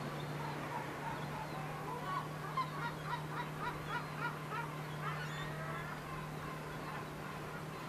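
Gulls calling: a run of short, repeated cries, about three a second, from about two seconds in, fading out before the end. A steady low hum and a faint hiss lie underneath throughout.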